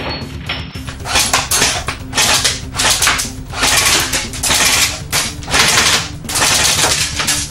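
Airsoft Steyr AUG rifle firing in repeated short bursts of rapid shots, a clattering rattle.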